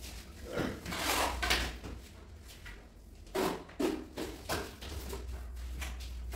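Tile-laying work: a run of short scrapes and knocks as large porcelain floor tiles and hand tools are shifted and pressed into place, a cluster in the first second and a half and a few separate ones later. A low steady hum runs underneath.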